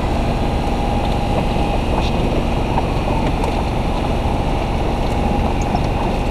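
Dual-sport motorcycle under way, with heavy wind noise on the microphone and a faint steady engine tone beneath it.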